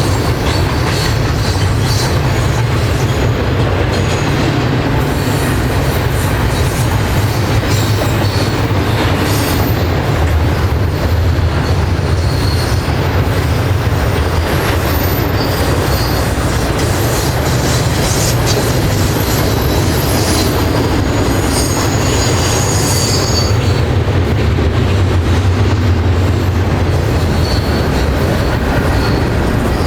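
Freight train rolling past, its steel wheels making a steady low rumble on the rails, with high-pitched wheel squeal coming and going, mostly through the middle.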